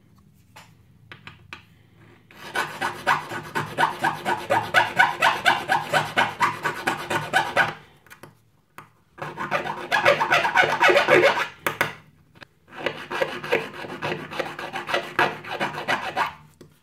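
Hand file rasping in quick, even strokes across a small aluminium revolver front sight blade, taking it down to fit its seat. The filing comes in three bouts of several seconds each with short pauses between, after a few light clicks at the start.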